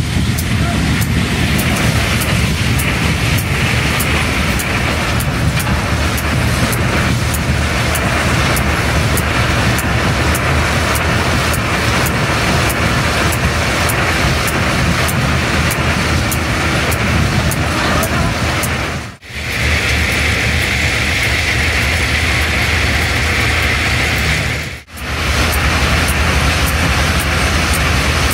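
Diesel-hauled ballast train running, a steady low engine hum under the rushing rattle of the wagons on the rails, while ballast is dropped from the hopper wagons onto the track. The sound cuts out briefly twice, near the middle and about two-thirds through.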